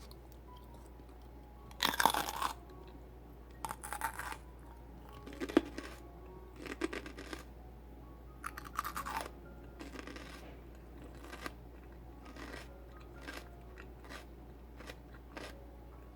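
Raw celery being bitten and chewed, crisp and crunchy. The loudest bite comes about two seconds in, then further bites and chewing crunches come every second or so, growing softer.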